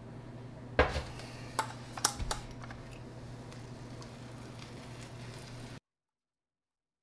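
A paint roller spreading contact cement over a particleboard countertop, with a few sharp knocks and clicks in the first couple of seconds and a steady low hum underneath. The sound cuts off abruptly about a second before the end.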